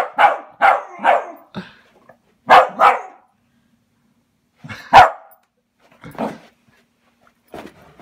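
Welsh Terrier barking in play, in short volleys: a quick run of four barks at the start, a pair about two and a half seconds in, then single barks about five and six seconds in, the last one softer.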